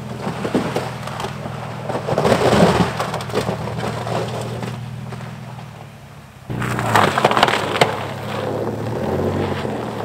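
Pickup truck engine running with a steady low hum, under two bouts of crunching and cracking, about two seconds in and again, starting suddenly, near seven seconds.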